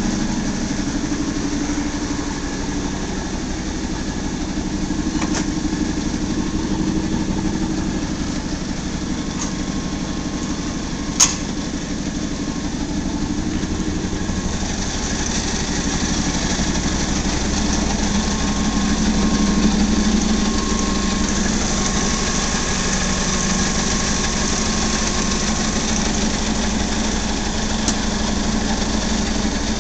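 90-ton Chicago D&K press brake running idle with its drive motor on: a steady mechanical hum, with one sharp click partway through.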